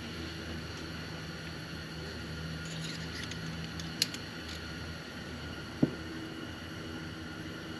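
Light metal clicks and taps from hand tools working at a Bobcat hydraulic drive motor's shuttle valve, with a sharp click about four seconds in and a clunk with a brief ring just before six seconds as a screwdriver is laid down in the drain pan, over a steady low hum.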